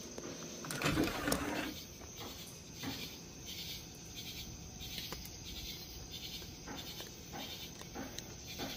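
Night insect chorus, crickets or katydids, with a steady high trill and repeated pulsing chirps a little over once a second. A brief louder rustle comes about a second in.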